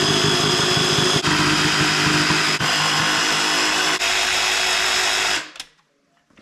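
DeWalt 20V cordless jigsaw cutting a square hole through a wooden board, its motor and blade running steadily with three brief dips, then stopping about five and a half seconds in.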